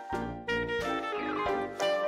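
Upbeat jazz-style background music with horns, a falling horn glide about halfway through, and a steady beat.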